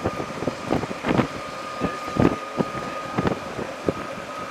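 Wind buffeting the microphone in an open-sided vehicle driving down a road, in irregular gusty thumps over a steady rush of road and engine noise, with a faint thin steady whine underneath.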